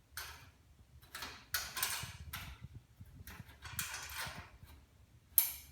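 Bolts and wing nuts being tightened down on a Massey-Harris Pony tractor's sheet-metal side panel: a run of short scraping bursts, then a sharp click near the end.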